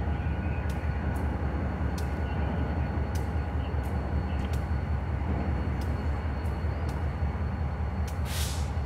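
Susquehanna (NYSW) diesel locomotive idling with a steady low rumble, faint sharp clicks scattered through it. A brief hiss comes near the end.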